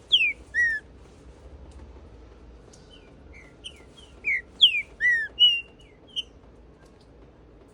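Male green-winged saltator (trinca-ferro) singing its full territorial song: two phrases of loud, clear whistled notes, mostly sliding downward, one at the very start and the next from about three to six seconds in.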